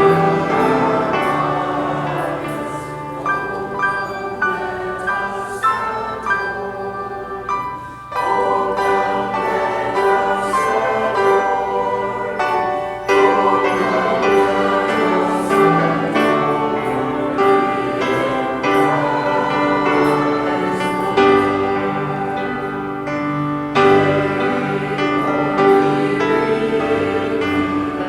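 Choir singing with musical accompaniment.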